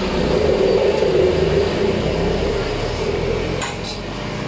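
A steady machine hum and rumble that swells at first and eases after about three and a half seconds, with a couple of short clicks near the end.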